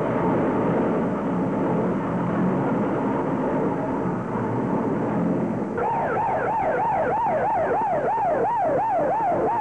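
Loud, dense noise, then about six seconds in a fire engine siren starts, yelping quickly up and down at about three sweeps a second.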